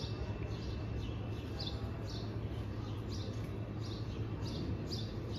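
A small bird chirping over and over, about two short falling chirps a second, over a steady low background hum.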